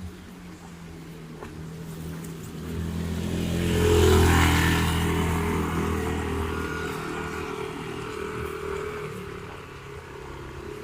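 A motor vehicle driving past: its engine and tyre noise grow louder, peak about four seconds in, then fade away.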